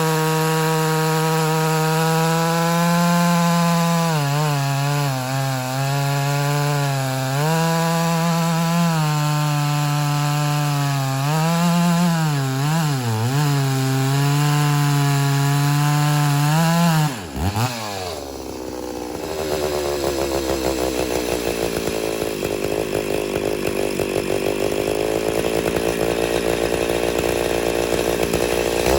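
Ported Homelite Super XL-925 82cc two-stroke chainsaw cutting with the bar buried in red oak, running high and steady with its pitch dipping several times under load. About 17 seconds in the engine note drops sharply and the saw settles into a lower, rougher running.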